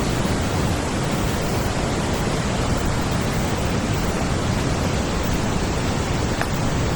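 A large forest stream flowing, a steady, even rush of water.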